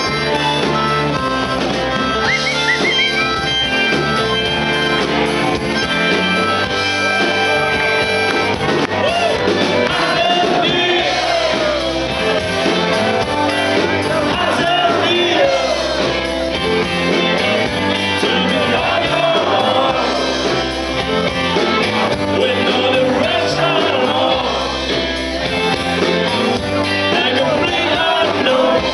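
Live rock band playing: electric guitars, bass and drums, with a singer's vocals coming in about nine seconds in.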